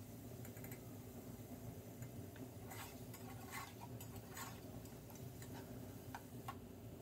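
Spatula stirring chicken pieces browning in a large nonstick pot: a few scattered light scrapes and clicks against the pot, most of them in the middle and near the end, over a faint steady low hum.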